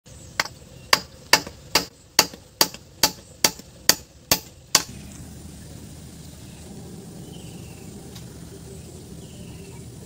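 A claw hammer driving a nail into a wooden crosspiece with about eleven sharp, evenly paced strikes, roughly two a second. The hammering stops about five seconds in.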